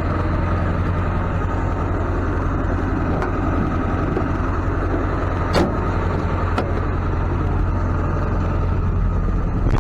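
Motor vehicle engine idling steadily, with two sharp clicks a little past the middle.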